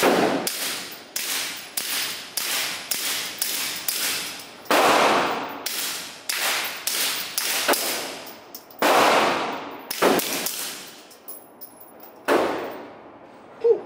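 Suppressed pistol fired in a fast string of around twenty shots, about two to three a second, each crack echoing in the indoor range; the last shot comes about twelve seconds in. The suppressor was working loose on the barrel during the string: sparks were seen at the muzzle and the can was found damaged afterwards.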